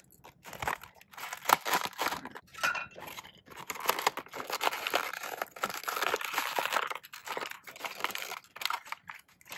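Clear plastic blister pack of a diecast toy car being torn and pried open by hand: a run of irregular crinkling, crackling and tearing plastic.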